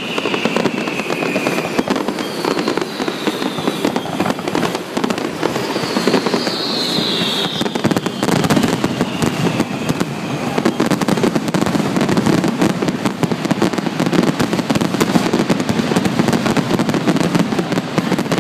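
Fireworks show: a dense, continuous barrage of aerial shell bursts and crackling that grows louder about halfway through. Several high whistles glide down in pitch during the first half.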